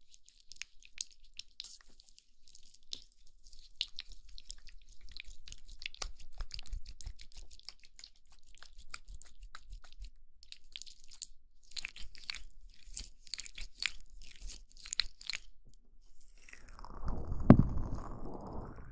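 Oiled hands rubbing together close to the microphone: a run of fine, crisp, sticky crackles and clicks, with a louder rushing rub near the end.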